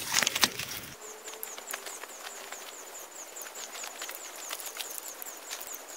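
Crackling and crunching of dry pine needles and cones underfoot and in the hand. Behind it, a high-pitched chirp repeats about four or five times a second, starting about a second in.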